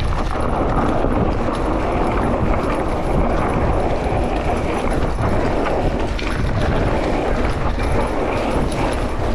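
Mountain bike descending a dry, loose dirt singletrack: a steady rush of tyre and wind noise with frequent small knocks and rattles as the bike jolts over the rough trail.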